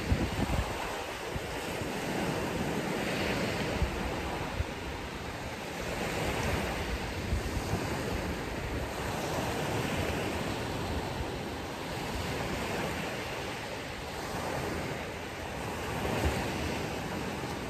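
Ocean surf breaking and washing up a beach, swelling and fading in slow surges every few seconds.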